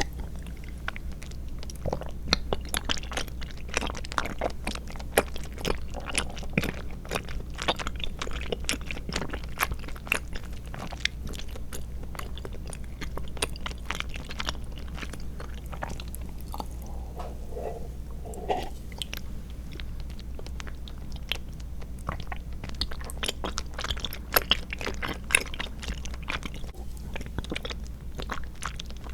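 Close-miked chewing of chewy tapioca pearls and milk jelly: a dense run of small clicks and smacks from the mouth.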